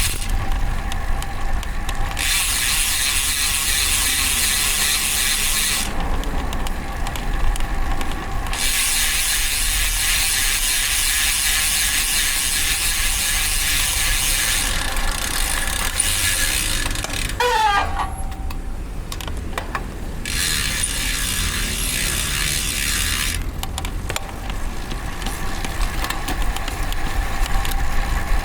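Road bike's DT Swiss ratchet freehub buzzing as the rider coasts, stopping each time pedalling resumes and starting again several times, over a low rumble of wind and tyres. A short wavering squeal comes about seventeen seconds in.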